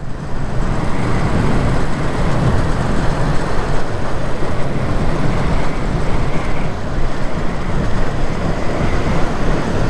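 Wind rushing over the microphone together with motorcycle engine and road noise, steady and loud, while a sportbike is ridden at speed.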